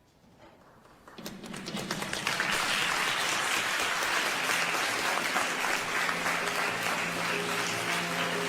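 Audience applause, starting about a second in and quickly swelling to a steady, dense clapping. Music comes in softly underneath near the end.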